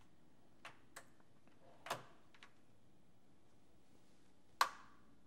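Metal hand tools clicking and clacking as they are picked through in a metal tool drawer. There are a few light clicks in the first couple of seconds and a louder clack with a brief ring near the end.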